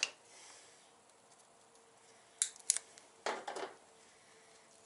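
Small grease sachet from a rivet-type chain master link kit being torn open by hand: two sharp clicks about two and a half seconds in, then a short rip.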